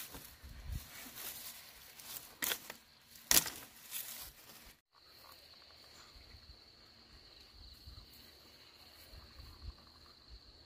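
Dry grass and stalks rustling and snapping as cassava roots are pulled and handled in the soil, with a few sharp cracks in the first half. After a short break, a steady high insect buzz runs on over faint rustling in the undergrowth.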